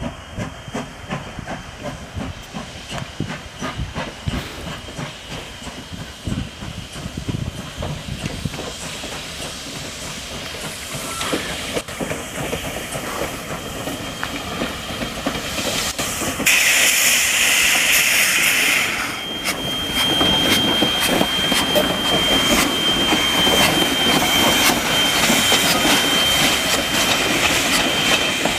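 Steam locomotive working, with rhythmic exhaust beats at first, growing louder. A bit past halfway comes a loud blast of steam hiss for a couple of seconds, followed by continuing train running noise with a thin steady high tone.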